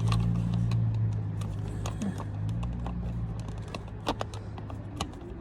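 Small sharp clicks and taps of tiny screws and a plastic window-switch housing being handled and fitted, over a steady low hum that fades after about three seconds.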